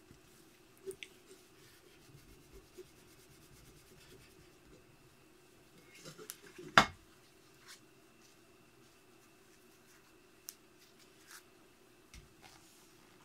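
A cloth wiping rust-remover paste off a chrome-plated hubcap, with soft rubbing and scattered small clicks and taps as the metal cap and gloved hands shift on a plywood board. There is one sharp knock about seven seconds in.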